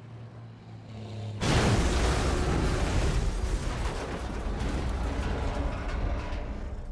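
Dramatised explosion sound effect: a low steady hum swells, then a sudden loud blast about a second and a half in, followed by a long noisy decay that slowly fades.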